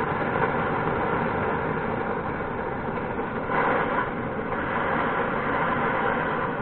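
Portable gas canister torch burning with a steady hiss, briefly a little louder about three and a half seconds in, as a tube is heated in its flame.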